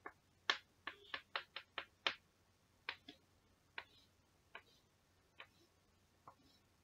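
Chalk tapping and striking a blackboard while writing letters and ruling lines: a run of sharp, irregular clicks, quick in the first two seconds and thinning out after.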